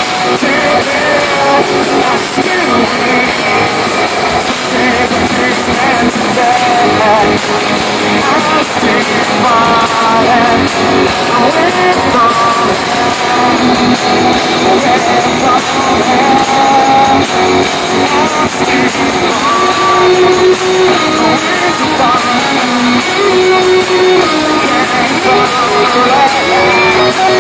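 A rock band playing live at full volume: electric guitars, bass and drums, with a singer's voice over them.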